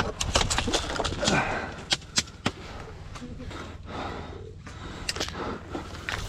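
Airsoft guns firing: a quick string of shots right at the start, a few single cracks about two seconds in, and more scattered shots near the end.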